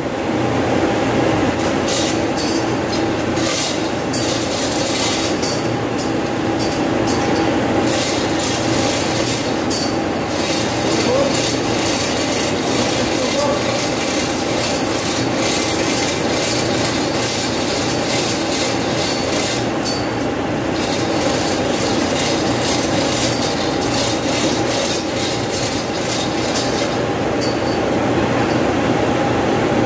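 Manual chain hoist lowering a heavy 50 hp electric motor: the chain rattles and clicks in runs, pausing briefly around two-thirds of the way in. Under it runs a steady mechanical hum of machinery.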